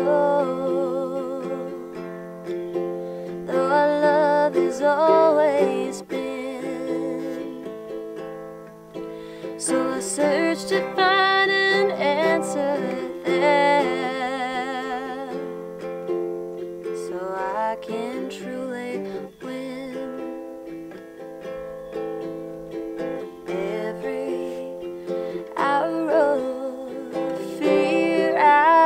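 A woman singing a slow ballad, accompanying herself on a strummed ukulele. Her voice comes in with vibrato about four seconds in, again around ten to fourteen seconds, and near the end, with the ukulele ringing on alone in between.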